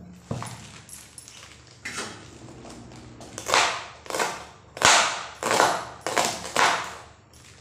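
Kitchen knife chopping a bunch of poi saag (Malabar spinach) leaves on a plastic cutting board, about two cuts a second from about three seconds in. Before that, softer knocks and rustling as the leaves are set down on the board.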